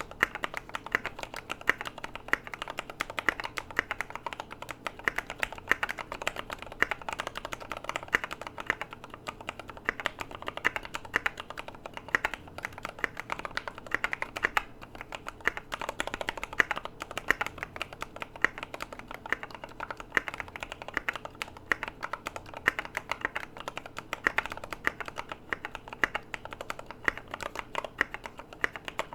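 Rapid, continuous typing on a mechanical keyboard with lubed Gateron Yellow linear switches (lubed with 205g0), MT3 profile keycaps and a polycarbonate plate in a KBD75v2 case with neoprene foam, giving a stream of soft clacks several a second.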